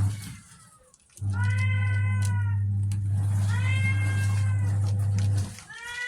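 A domestic cat meowing three times, each meow drawn out, as cats do when begging for food. A steady low hum runs under the meows and drops out twice, near the start and near the end.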